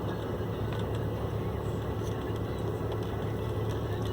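Boat engine running steadily with a constant low hum.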